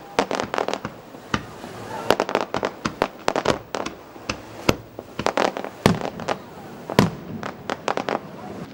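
Aerial fireworks bursting: a rapid, irregular series of sharp bangs, with dense runs of crackling reports about two to four seconds in and a few louder single bangs later.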